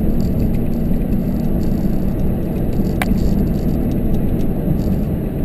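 Steady low rumble of a car's engine and tyres heard from inside the cabin while driving, with a single sharp click about three seconds in.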